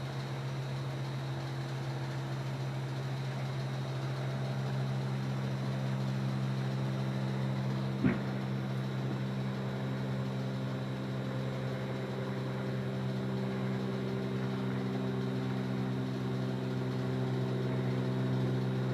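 Steady low machine hum, like an idling motor, with a single sharp firework pop about eight seconds in.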